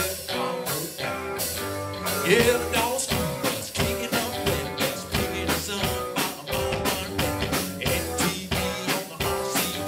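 Live band playing: electric guitars over bass and drums with a steady beat, and a note sliding up about two seconds in.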